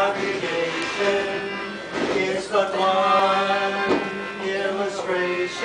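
Melodica playing a slow tune of held notes, the instrumental lead-in before the singing starts.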